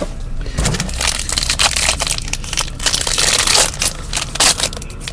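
Wrapper of a 2013-14 Panini Dominion hockey card pack being torn open and crumpled by hand, a dense crinkling and crackling that eases near the end.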